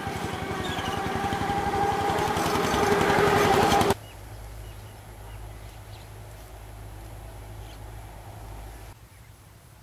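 Small engine running with a rapid firing beat, growing steadily louder, then cut off suddenly about four seconds in. A faint low rumble follows and fades near the end.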